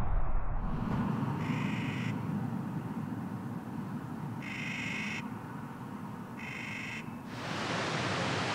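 Three short, high-pitched animal calls, each held at one pitch, spaced about two to three seconds apart, over a low rumble.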